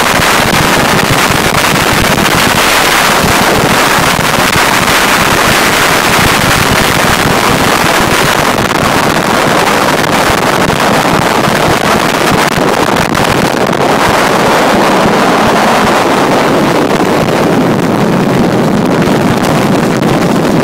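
Loud, steady wind buffeting the microphone of a moving vehicle, mixed with the engine buzz of a 1970 Yamaha 350 two-stroke twin motorcycle cruising alongside.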